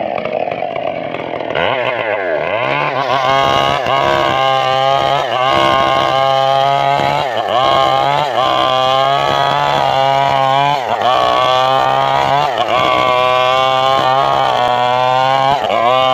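Stihl two-stroke chainsaw running at high revs while ripping lengthwise through a teak log, its engine pitch dipping and recovering about every second or so.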